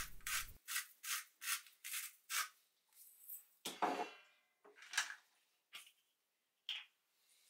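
Salt being seasoned onto sliced roe deer meat. There is a run of short strokes, about two or three a second, for the first couple of seconds, then a few scattered ones, with one longer, slightly ringing sound near the middle.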